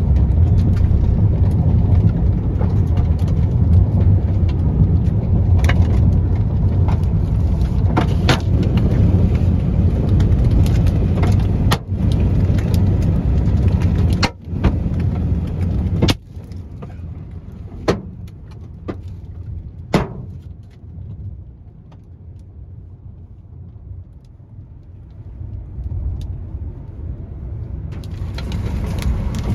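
Car cabin while driving through a hailstorm: a steady low road-and-engine rumble with scattered sharp knocks of hailstones striking the car and its cracked windshield. About sixteen seconds in the rumble drops away as the car slows, then builds again near the end as it picks up speed.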